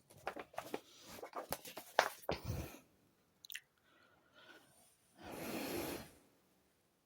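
Quiet close handling noises: a run of small clicks and crackles over the first few seconds, a brief faint squeak, then a short soft rustle about five seconds in.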